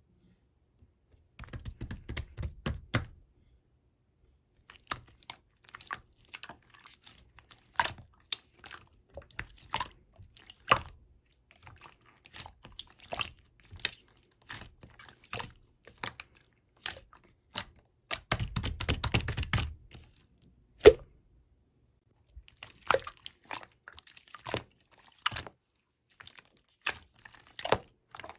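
Small objects being handled close to the microphone: irregular clicks, taps and crinkles, with two short stretches of rustling and one sharper knock about two-thirds of the way through.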